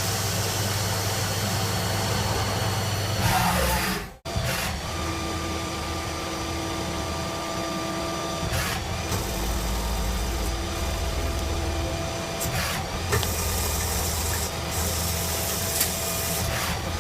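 CNC machine tool running: a steady mechanical hum with several steady whining tones and rubbing, cutting noise. It drops out briefly about four seconds in, then carries on.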